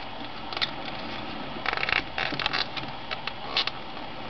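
Backing liner being peeled off an adhesive vinyl phone skin by fingers: crinkling and crackling of the film and adhesive in short bursts, the busiest stretch about two seconds in.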